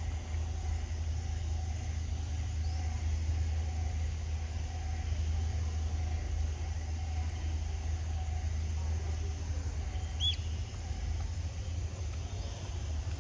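Outdoor ambience dominated by a steady low rumble, with a faint wavering hum above it and one short high chirp about ten seconds in.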